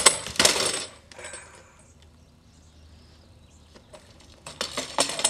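BMX bike clattering onto asphalt as the rider bails, metal frame and parts rattling and ringing in the first second, then a second burst of clattering about four and a half seconds in.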